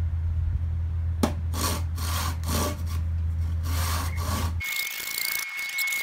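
A handsaw cutting through a log of firewood in quick back-and-forth strokes, two or three a second. A little over four seconds in, it gives way abruptly to the hiss and crackle of a wood fire burning in a barbecue trough, with a thin steady whistle.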